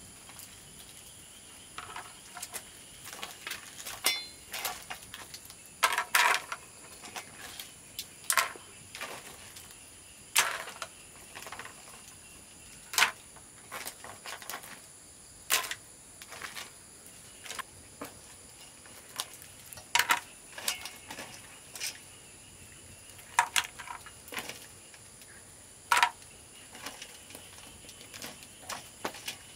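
Sharp knocks or taps at irregular intervals, a louder one every two to three seconds with lighter clicks between, over a faint steady high-pitched tone.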